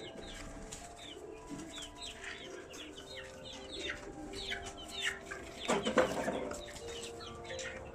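Birds chirping and calling: a steady run of short, high chirps that fall in pitch, with a louder rush of noise about six seconds in.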